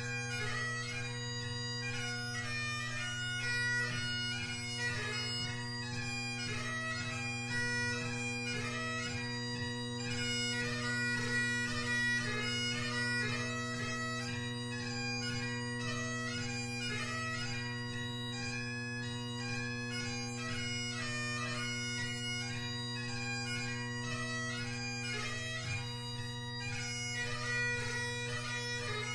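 Great Highland bagpipe with McCallum drones and a G1 Blackwood chanter playing a traditional tune. The drones hold a steady low chord under the chanter's quickly changing melody notes.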